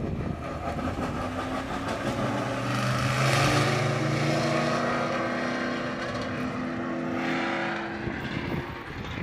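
Race cars passing at speed, engines at a steady high note. They are loudest about three seconds in, then fade, swelling again briefly near the end.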